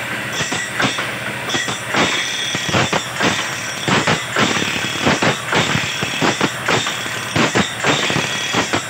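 Automatic bandsaw-blade sharpening machine running: regular clacks, about two a second, as its feed mechanism advances the band blade tooth by tooth. Under them is a steady high whine and the hiss of the grinding wheel on the blade's teeth.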